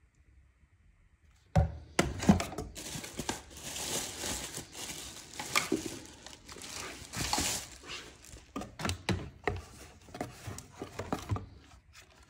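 Plastic packaging crinkling and rustling, mixed with knocks and clicks of the stick vacuum's plastic parts and the cardboard box being handled, starting about a second and a half in.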